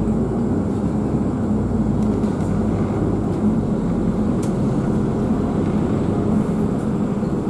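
Steady low rumble and drone of a moving double-decker bus, heard from inside the cabin: engine and road noise without a break.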